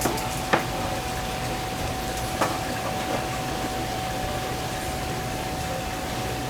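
Steady hissing background noise with a faint steady whine through it, and a few short sharp knocks, the loudest about half a second in and another about two and a half seconds in.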